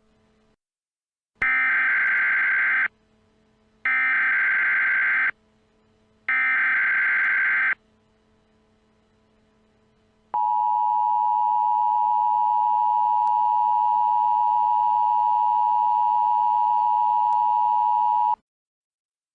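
Emergency Alert System tones: three bursts of SAME header data tones, about a second and a half each, then about eight seconds of the steady two-tone EAS attention signal, which cuts off suddenly.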